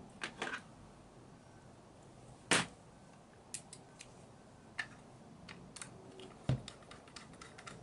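Scattered sharp clicks and light knocks from a Tamiya Gravel Hound RC buggy's plastic chassis and motor mount being handled while the motor is screwed down with a screwdriver. The sharpest click comes about two and a half seconds in, a duller knock about six and a half seconds in, and a quick run of small ticks near the end.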